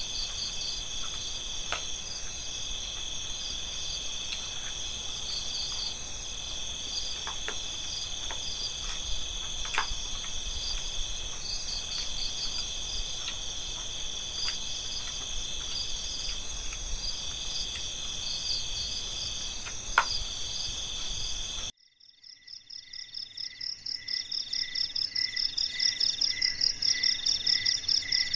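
Steady chorus of night insects, crickets trilling at several pitches, with a few light clicks of a metal spoon against a plastic food container. About three-quarters of the way through the sound cuts out suddenly, and a different pulsing insect call, about two pulses a second, fades in and grows louder.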